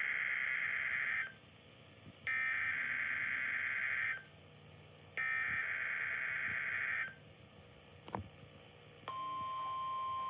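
NOAA Weather Radio SAME alert header coming through a Midland WR400 weather radio's speaker for a Required Weekly Test. It is a run of three digital data bursts, each about two seconds long and a second apart, with the first already under way and ending about a second in. A brief click comes near eight seconds, and about nine seconds in the steady 1050 Hz weather alert tone begins.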